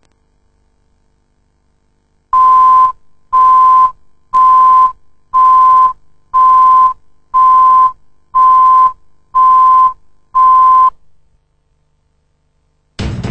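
Video countdown leader tone: nine identical steady, high-pitched beeps, one each second. Music starts suddenly near the end.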